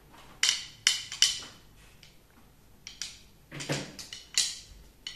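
A small child striking a thin stick against a ceramic tile floor, making irregular sharp clacks with a short ring. Three come in quick succession early, then several more, more loosely spaced, from about three seconds in.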